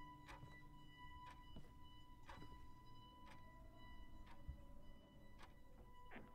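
Faint clock ticking about once a second over a steady high-pitched drone.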